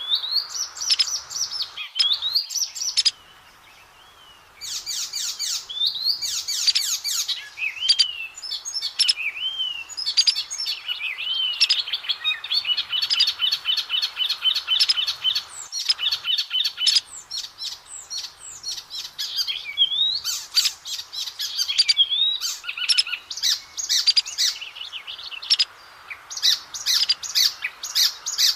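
Oriental magpie-robin singing a long, varied song of clear whistles that slide up and down, mixed with fast rattling trills. The song breaks off for about a second and a half near the start.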